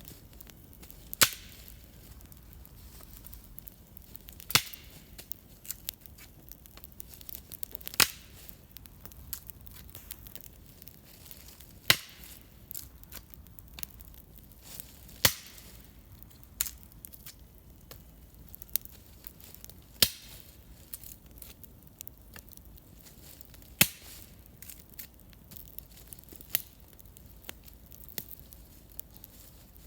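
Wood campfire crackling: sharp pops every three to four seconds, with smaller crackles between them, over a faint steady background.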